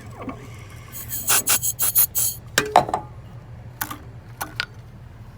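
Light metallic clicking and clattering: a quick run of clicks about a second in, then a few single clicks near the end, from handling a freshly cut key at a Mini-Condor key machine.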